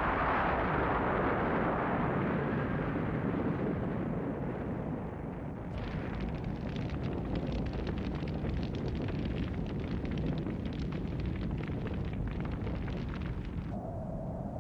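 Animated-film explosion sound effect: a loud blast that fades over a few seconds, followed by a long crackling rumble that cuts off near the end.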